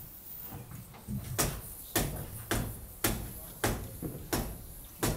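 Pneumatic framing nailer driving nails into timber framing: a rapid series of about seven sharp shots, roughly one every half to three-quarters of a second.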